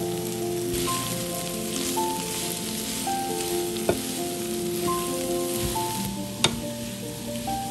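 Broccoli and carrot sizzling in a hot frying pan as they are stirred, the hiss strongest through the middle, with two sharp taps of the utensil against the pan. Background music plays throughout.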